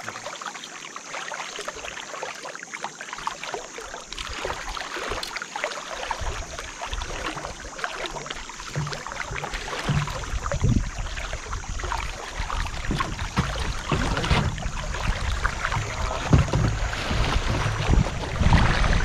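River water rushing and splashing around a kayak. From about six seconds in, wind rumbles on the microphone and slowly grows louder.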